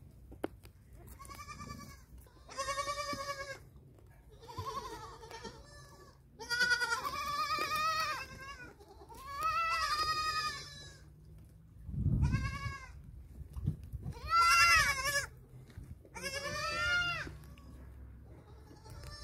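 Goats bleating, about eight separate calls one after another, several of them long and wavering in pitch. A brief low thud comes about twelve seconds in.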